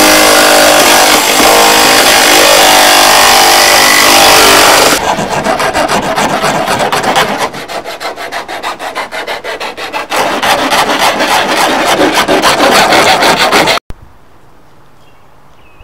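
A cutting tool rasping steadily for about five seconds, then rhythmic rasping strokes about three a second that stop suddenly near the end: the rough edge of a freshly cut window opening being cleaned up.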